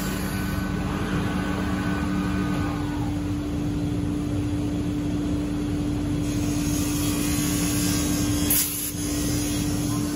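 Steady drone of CNC router machinery and its dust extraction running, with a low hum that drops out a few seconds in and a brief hiss near the end.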